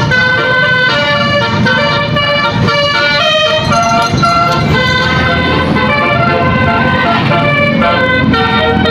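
A bus's telolet musical horn, a bank of air horns, playing a tune. Held notes step from pitch to pitch about every half second.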